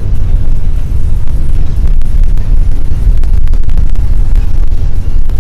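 Low, steady rumble of a freight train's cars rolling past, mixed with wind buffeting the microphone.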